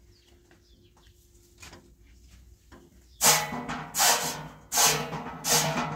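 Straw broom sweeping a concrete floor: about four loud brushing strokes, roughly one every 0.7 seconds, starting about three seconds in after a quiet stretch.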